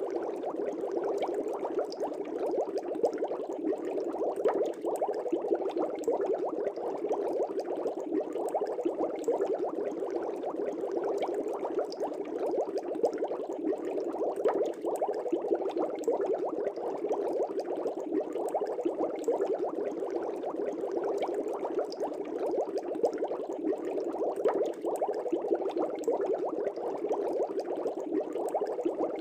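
Aquarium air bubbles rising and breaking at the surface of a fish tank: a steady, dense bubbling with many small pops.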